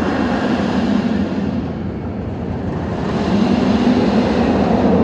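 Roller coaster train running along its steel track, a loud rumble that eases briefly about two seconds in and builds again.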